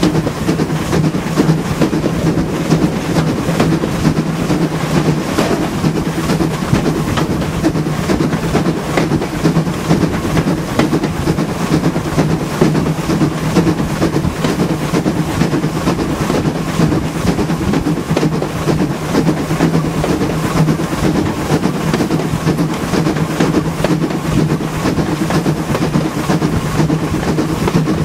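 LB&SCR E4 class 0-6-2 tank engine working hard, heard from the leading coach: a steady run of rapid exhaust beats over the rumble and clatter of the train's wheels on the rails.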